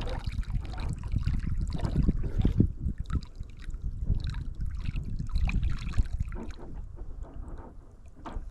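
Creek water trickling and lapping around a kayak, under a constant low rumble, with scattered light knocks and rustles of the hull and fishing gear.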